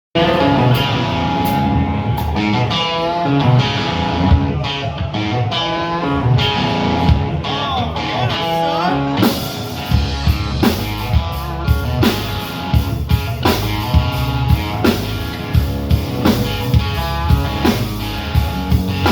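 Live rock band playing a song's instrumental intro: electric guitar lines at first, including a bent note, then the drum kit and bass come in about halfway with a steady beat.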